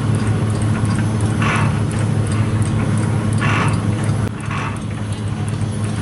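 Steam traction engine running slowly: a steady low mechanical hum, with a short hiss of steam about every one to two seconds.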